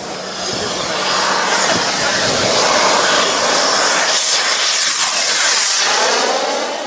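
Miniature turbine engine of a radio-controlled model jet running at high power: a loud jet rush with a thin high-pitched whine. It swells about a second in, then fades with a sweeping, phasing sound as the model goes past along the runway.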